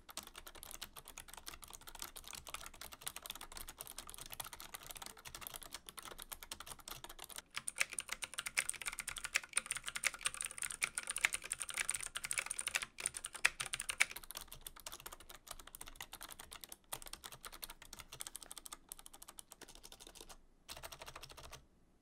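Fast typing on a Razer Ornata V2's mecha-membrane keys, giving soft clicks without a loud bottom-out. About a third of the way in it changes to typing on a keyboard with Razer Green clicky mechanical switches, louder and crisper. The typing goes softer again after that.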